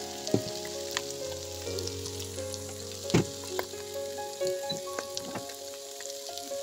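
Diced chicken, mushrooms and garlic frying in bubbling fat in a pot, with a steady sizzle. A few sharp knocks break in, the loudest about three seconds in.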